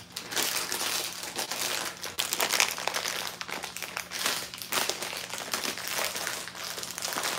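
Plastic packaging of shredded Parmesan cheese being crinkled and crumpled in the hands as it is worked open, an irregular run of crackles and rustles.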